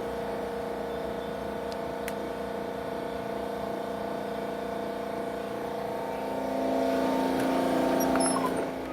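Steady mechanical hum made of several level tones, growing louder for about two seconds near the end and then dropping off sharply.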